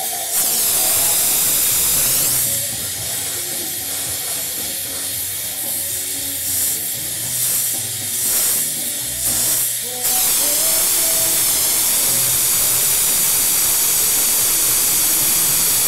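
Glassblower's bench torch hissing as it heats glass. About ten seconds in the hiss turns louder and steadier as the flame is turned up from a soft yellow flame to a sharp blue, hotter one.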